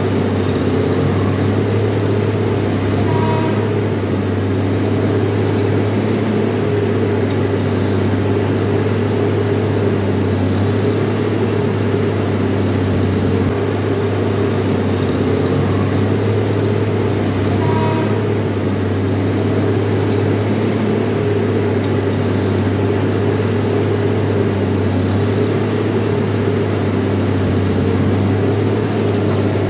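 The diesel engine of a UNIMAT track tamping machine running steadily, a deep even hum with no change in pitch.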